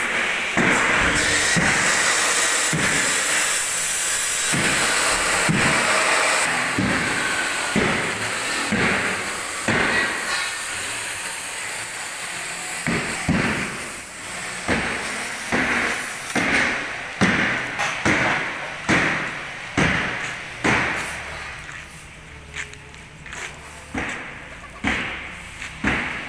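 Steady hiss of rain for about the first twelve seconds, then a series of sharp knocks, roughly one a second, which are the loudest sounds.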